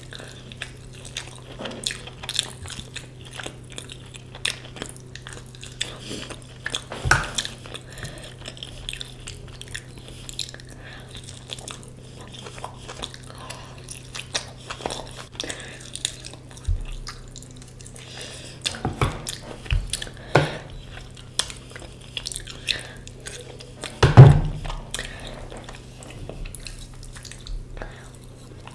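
Close-miked chewing and biting of food, with many short mouth clicks and one louder bite about three-quarters of the way through, over a steady low hum.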